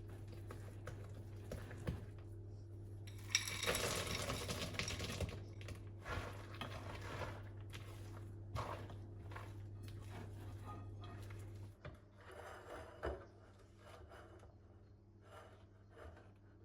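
Kitchen work sounds: a two-second burst of noise about three seconds in, then scattered clicks and light knocks, over a steady low hum that drops away about twelve seconds in.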